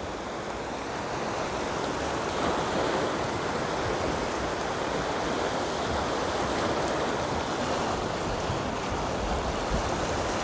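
A fast stream running high and muddy, rushing over rapids in a steady wash of whitewater.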